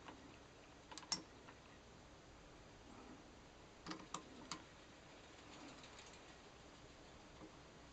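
Faint metal clicks and taps as a socket head cap screw with an Allen key in it is handled and set in the steel jaws of a machine vise: two quick clicks about a second in and three more around four seconds in, over near silence.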